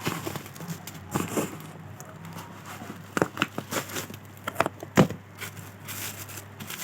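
Hands handling phone packaging: plastic and cardboard crinkling and crackling, with scattered clicks and one sharp knock about five seconds in, over a faint steady low hum.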